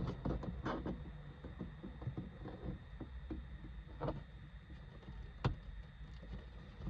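Plastic interior car trim being pulled against its retaining clips: scattered faint clicks, creaks and rubs, with a sharper click about four seconds in and another about five and a half seconds in.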